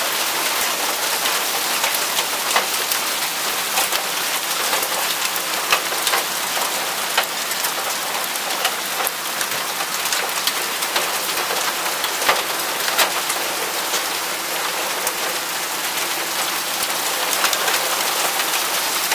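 Torrential rain in a hailstorm: a loud, steady hiss of rain pouring onto the road and cars, with frequent sharp clicks and knocks of hailstones striking nearby surfaces.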